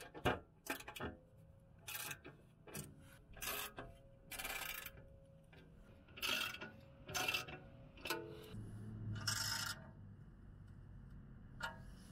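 Hand ratchet with a T30 Torx bit tightening the skid plate's screws: about a dozen short bursts of rapid clicking and scraping at uneven intervals as the handle is swung back and forth.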